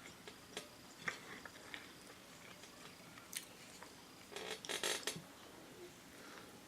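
Quiet eating sounds at a meal: scattered faint clicks and, about four and a half seconds in, a couple of short rustly bursts.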